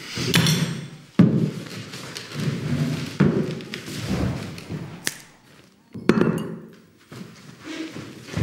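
A brief struggle as people grab one another at a dinner table: a series of sharp thuds and knocks, about four loud ones spread over the stretch, between rough shuffling movement.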